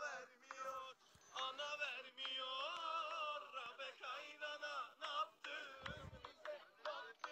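A group of men singing a song together, with a short low thump about six seconds in.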